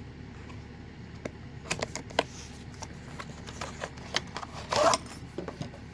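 Cardboard knife box being opened and its packaging handled: irregular light clicks and scrapes from about a second in, with a louder rustle near the end, over a steady low hum.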